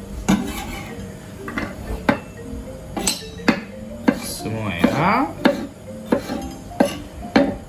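Chef's knife slicing mini bell peppers on a wooden cutting board: an irregular string of sharp knocks as the blade meets the board. Somewhere in the first few seconds the cut strips clatter into a small stainless steel bowl.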